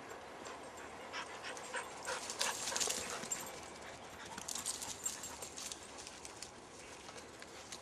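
Border collies running through dry undergrowth and leaf litter: a quick run of rustling, crackling footfalls, loudest about two and a half seconds in and again around five seconds in.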